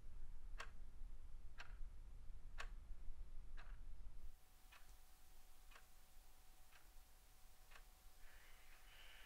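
Clock ticking steadily, about once a second. A low rumble under the first four seconds drops away about four seconds in.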